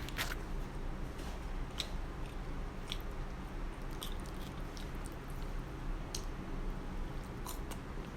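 Close-up mouth sounds of someone eating cheesy tortilla-chip nachos: scattered crunches and chewing, over the steady hum of a fan.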